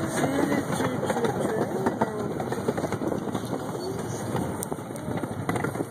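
Miniature ride-on park train running along its track, a steady dense rattle and clatter of the cars and wheels, with a few voices in the first second or so.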